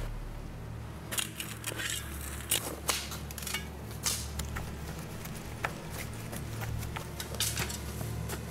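Footsteps crunching and snapping twigs on a dry forest floor, irregular crackles that bunch together about a second in and again near the end, over a low steady hum.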